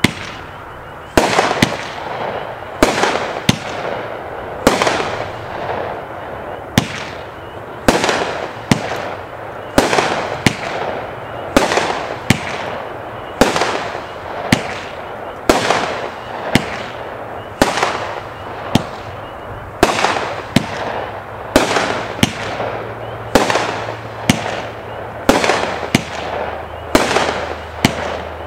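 Pyro King F-15 200-gram fireworks cake firing shot after shot, about one a second. Each shot is a sharp bang, sometimes two close together, trailing off into the hiss and crackle of its crackling tails, brocades and strobes.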